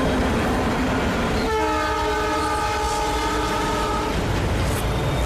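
Train running along the track, its wheels and engine a steady rumble; about a second and a half in, its horn sounds one long blast of several notes together, lasting about two and a half seconds.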